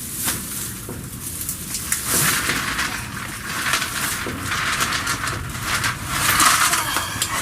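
Hands digging through potting soil in a planting container, a continuous rustling and crunching with a few sharp clicks, louder twice.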